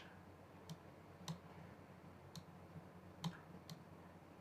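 Faint, scattered clicks at the computer, about five spread over a few seconds, against near silence.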